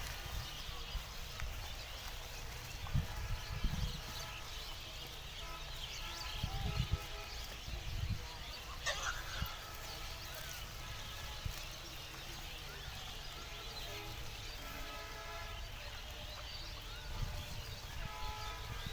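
Farm animals calling, several separate pitched calls each about a second long, spread every few seconds over a low rumbling background.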